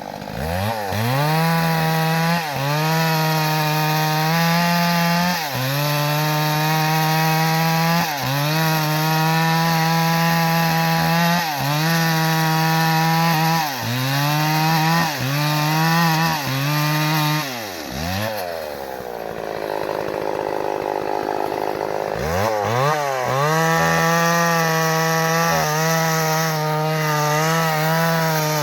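Chainsaw running at high revs while cutting acacia wood, its pitch dipping briefly and recovering every couple of seconds. About two-thirds of the way through it drops to idle for a few seconds, then revs back up.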